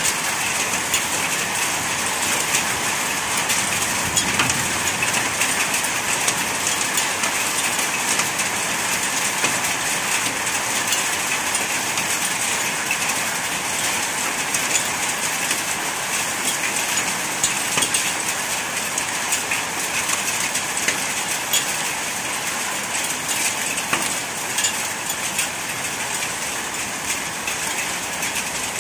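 Heavy downpour of rain mixed with hail: a loud, steady hiss with a dense patter of small, sharp hailstone impacts throughout.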